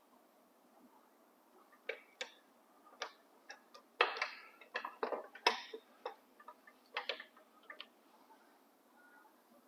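Irregular metallic clicks and knocks from hand work on the mower's chain drive, handling tools and steel roller chain. They are loudest in a quick cluster about four to six seconds in.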